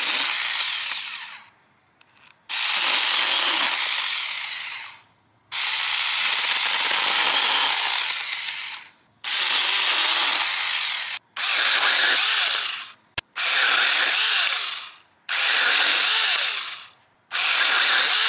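Two cordless mini chainsaws cutting 1-inch honeysuckle branches in short runs, the 4-inch Saker first and then the 6-inch 20-volt Alloyman near the end. The motor and chain run about eight times, each run one to three seconds long with brief pauses between, and there is one sharp click about halfway through.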